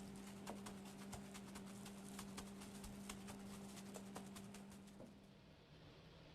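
Faint, irregular light clicks and taps over a steady low electrical hum; both stop together about five seconds in.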